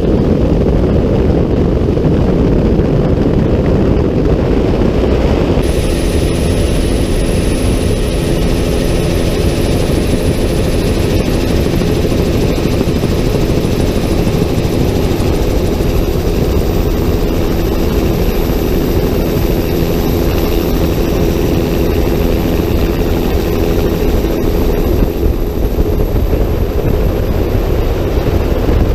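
Helicopter in flight: a heavy, steady rotor and engine rumble. About six seconds in the sound changes abruptly, and a thin high turbine whine comes in and slowly rises in pitch.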